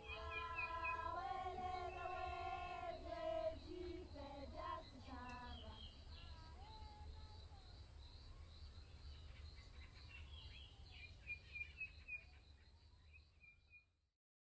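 Faint outdoor ambience with birds calling and chirping over a low steady rumble, fading and cutting out near the end.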